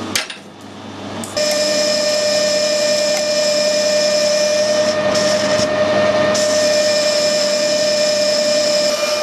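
Metal lathe turning a bearing housing, with an insert-tipped tool cutting the spinning part. About a second in, the cut starts with a sudden rise to a steady whine and a high-pitched singing from the tool. The singing breaks off twice briefly in the middle.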